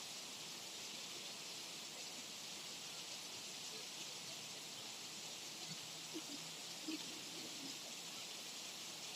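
Light rain, a drizzle, making a steady soft hiss. A few faint short sounds come through about six to seven seconds in.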